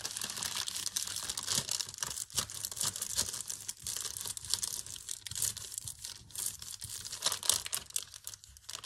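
Thin paper being peeled slowly off a paint-covered gel printing plate to pull the print, with a steady crackling rustle that thins out near the end.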